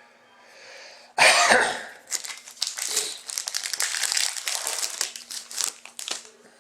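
Foil trading-card pack wrapper crinkling as it is handled and torn open, with a sudden loud crackle about a second in and then steady crinkling.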